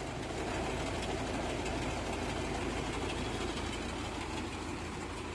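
Fuel tanker truck's engine and delivery pump running steadily while fuel is pumped out through the metered hose.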